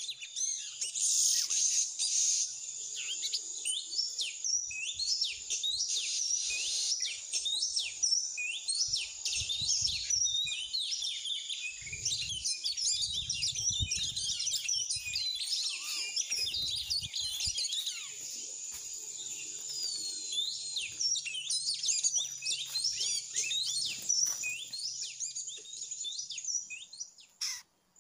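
Fast, continuous songbird song, a dense run of varied chirps and whistles that cuts off suddenly near the end.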